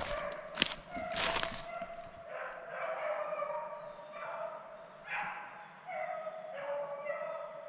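Rabbit-hunting hounds baying in a string of drawn-out calls, about one a second from roughly two seconds in: the trail voice of dogs running a rabbit. Sharp rustling and crackling noises fill the first second and a half.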